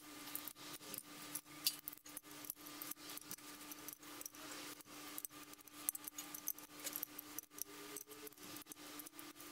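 Socket wrench ratcheting and clinking against metal as the front timing cover bolts are run in on an LS-series V8 block: many short, irregular metallic clicks over a faint steady hum.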